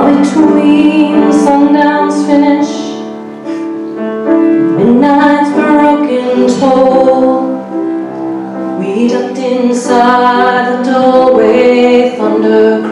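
A woman singing a slow song while accompanying herself on a grand piano, in phrases with short breaks between them.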